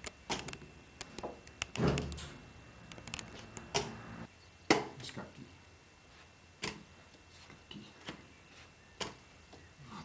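A chess game being played: wooden chess pieces clacked down on the board and the mechanical chess clock pressed, sharp single clacks every second or two, the loudest a little under five seconds in.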